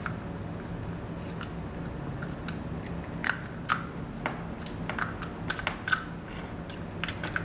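Small irregular plastic clicks and taps, coming more often in the second half, as the housing of a 220-volt power plug is handled and pushed onto its wired insert. A steady low hum runs underneath.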